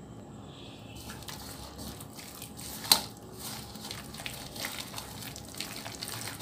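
Chicken pieces being mixed by hand in a bowl of sticky egg, cornflour and spice marinade: soft, irregular wet squishing, with one sharp click about three seconds in.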